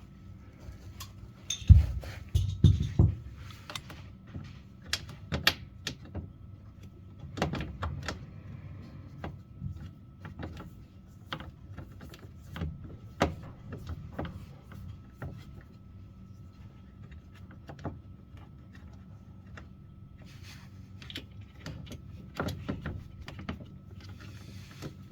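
Irregular clicks, clanks and knocks of tools and metal parts being handled while a washing machine's bottom cover is bolted back on, with a few loud thumps about two seconds in.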